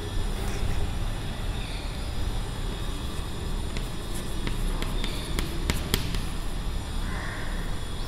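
Chalk tapping and scratching on a blackboard as words are written, with a cluster of sharp taps between about four and six seconds in, over a steady low background hum.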